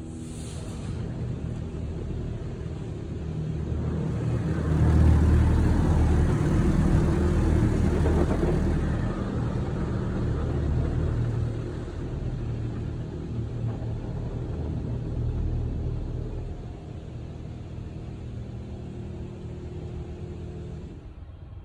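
Tunnel car wash heard from inside the car's cabin: a steady low hum under the rush of water and foam washing over the windshield and body. The washing swells about four seconds in, is loudest for the next several seconds, then eases off.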